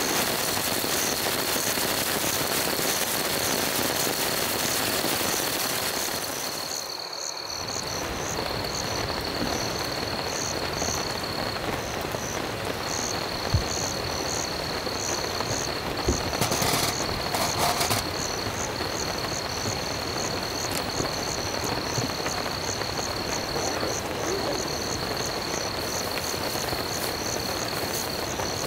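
Steady rain falling, with insects trilling: one unbroken high trill and a repeating high chirp about twice a second. The sound dips briefly about seven seconds in, and a few faint knocks come in the middle.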